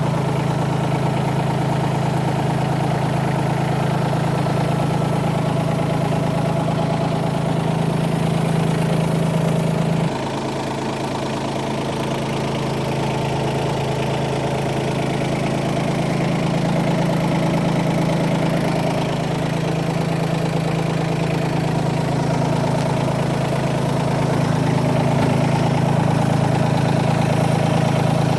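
Bobcat B250 loader backhoe's diesel engine running steadily at idle. About a third of the way in the sound drops suddenly a little quieter, then slowly builds back up to its earlier level.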